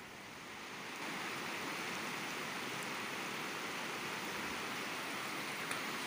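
Shallow, rocky mountain river rushing over stones in a steady roar of water, growing louder about a second in.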